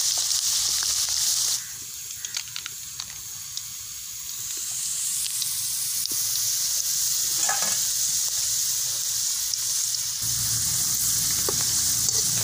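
Sliced raw aathandangai deep-frying in hot oil in a wide metal kadai: a steady sizzle, with a few light clicks and scrapes of a slotted ladle stirring the slices. The sizzle drops suddenly quieter about a second and a half in, then builds back up over the next few seconds.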